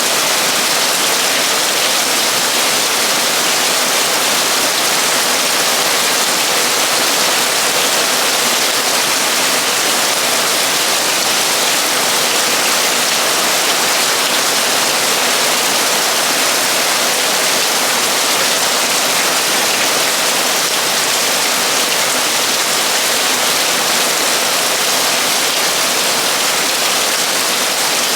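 Torrential rain drumming steadily on a metal roof, a dense, even hiss with no let-up.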